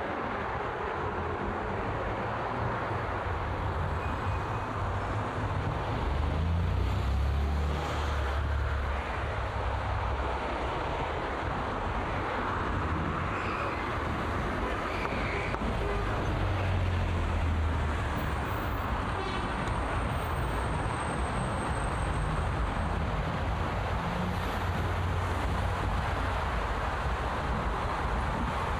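Busy road traffic: a steady wash of engine and tyre noise from passing cars, with the low rumble swelling three times as vehicles go by close.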